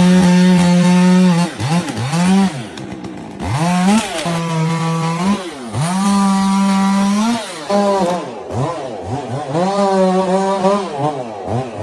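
Chainsaw running at full throttle in stretches. Several times its pitch falls away and glides back up as the throttle is let off and squeezed again, and the pitch wavers unevenly in the later part.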